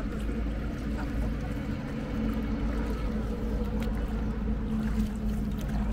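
Ambience aboard a hand-rowed boat on a river: a steady low rumble with a held hum, water noise, and a few light knocks.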